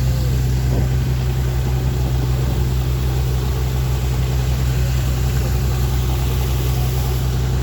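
Fishing boat engine running steadily with a deep, even hum.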